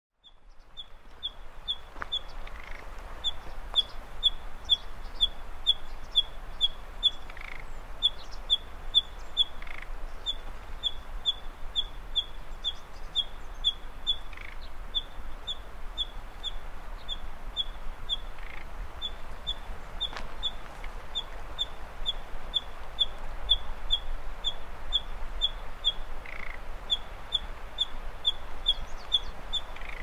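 Common nightingale calling: a short high note repeated steadily about three times a second, with a fainter, lower note every few seconds.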